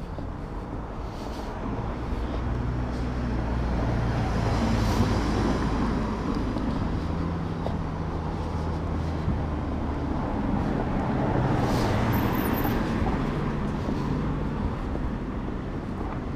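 Road traffic noise: cars going by on a street, a steady rumble and hiss that swells a few seconds in and stays up.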